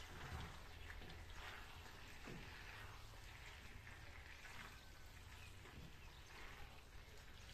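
Faint, irregular wet scraping and squelching as a wooden spatula stirs bow-tie pasta into a minced-meat tomato sauce in a frying pan.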